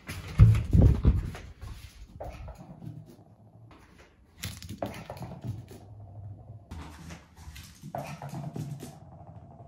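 Shiba inu puppy walking on a wooden floor, its paws and claws making light clicks and ticks. Two heavy thumps come about a second in.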